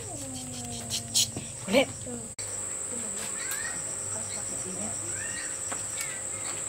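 A steady, high-pitched insect chorus drones evenly throughout. In the first two seconds there are a few brief sounds, the loudest a short sharp one just before two seconds in.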